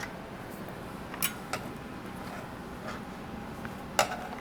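A few light clicks and taps of a screwdriver and a small metal screw being worked out of a TV circuit board. The sharpest click comes about four seconds in, over a low room hiss.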